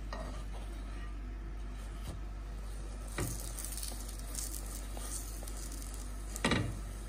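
Flatbread cooking in a hot nonstick frying pan, sizzling, while it is turned with metal tongs: two sharp knocks of the tongs against the pan, about three seconds in and a louder one near the end.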